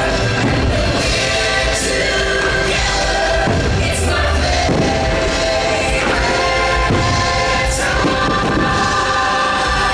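Choir singing holiday music over the show's sound system, with the low thuds of fireworks bursts mixed in.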